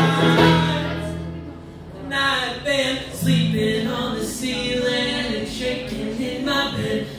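Bluegrass band with fiddle, banjo, upright bass and acoustic guitar: the instruments fade out about a second in, and from about two seconds in several men sing together in harmony, largely unaccompanied.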